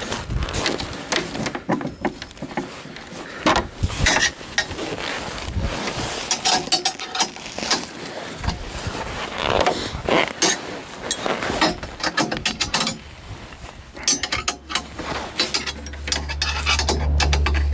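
Spanner working a nut and bolt loose on a steel frame: irregular metal clicks, clinks and scrapes, with rustling of gloves and clothing. A steady low rumble comes in about three-quarters of the way through.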